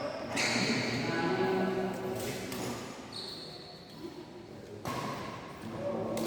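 Badminton being played in an echoing indoor hall: a few sharp racket hits on the shuttlecock among players' faint voices.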